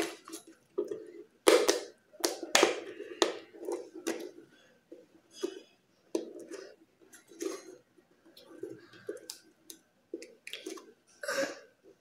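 Plastic handling noises: a corrugated plastic hose being pushed and twisted into a hole in a plastic tub, giving irregular clicks, knocks and scrapes.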